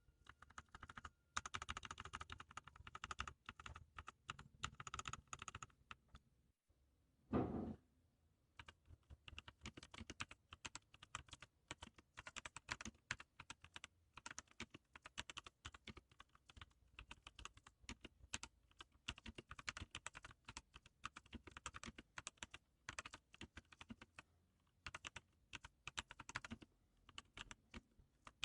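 Typing on a Z-88 backlit computer keyboard: a fast run of key clicks, a short pause, one loud dull thump about seven seconds in, then steady typing for the rest of the time.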